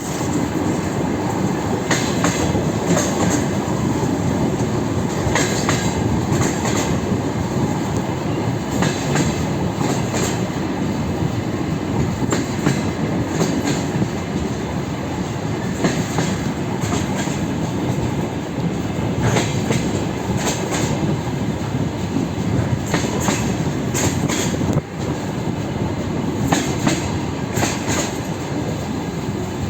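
DR1A diesel multiple unit under way, its wheels clattering over rail joints in clickety-clack pairs every few seconds over a steady running rumble.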